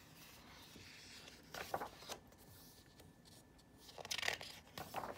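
Pages of a hardcover picture book turned by hand: two short paper rustles, about one and a half seconds in and again about four seconds in, with faint room tone between.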